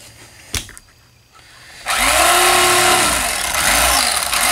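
Electric fillet knife switched on about two seconds in and running loud, its motor pitch sagging and recovering in arcs as the blade works through a bass. A sharp click comes just after half a second in, before the knife starts.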